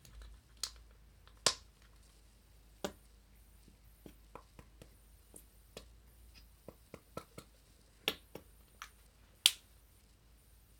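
The plastic flip-top cap of a small whipped shea lotion bottle clicks as it is handled: one sharp snap about a second and a half in, another near the end. Smaller ticks and taps of the bottle being squeezed come between them.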